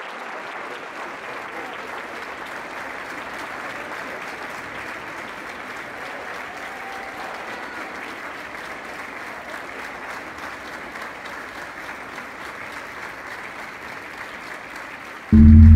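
Audience applause, steady and sustained. Near the end, a sudden loud low hum cuts in over it.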